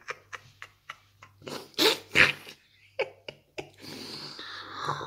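A man laughing in short breathy bursts, then a long noisy sip from a ceramic coffee mug starting a little past halfway.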